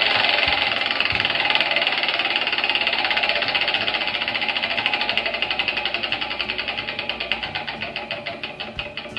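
Spinning prize wheel ticking as its pointer passes the segments. A rapid stream of clicks slows steadily and fades, down to a few ticks a second near the end, as the wheel coasts toward a stop.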